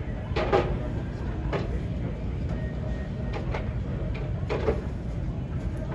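Steady low rumble of airport ramp noise, with four brief knocks or clatters, the loudest about half a second in.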